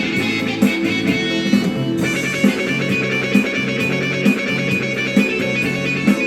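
Yamaha PSR-E373 portable keyboard playing a guitar-like voice over a steady drum beat from its accompaniment, with the music changing about two seconds in.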